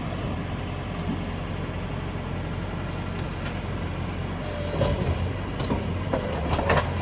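Diesel engine of a JCB 3DX backhoe loader running steadily during loading work, with a few sharp knocks in the last two seconds.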